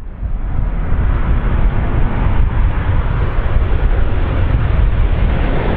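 A large airplane on landing, its engines making a loud, steady rush with a deep rumble underneath.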